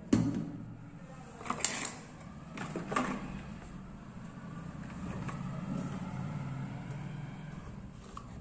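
Handling noise from a rubber-cased portable Bluetooth speaker and its cardboard box with a plastic window: a sharp knock at the start, then a few more knocks and scrapes over the first three seconds. Under them runs a steady low hum.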